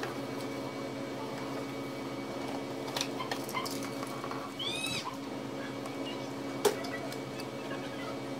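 Small clicks of a craft knife worked against white edge-banding tape on an MDF cabinet edge, with one sharp click about two-thirds of the way through. A brief high squeal that rises and falls comes near the middle, over a steady low hum.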